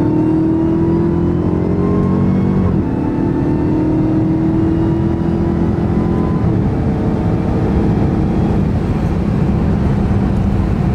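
Car engine heard from inside the cabin while driving on the highway: it pulls up in pitch, shifts up about three seconds in, climbs again more gently, then settles into steady cruising over constant road and tyre noise.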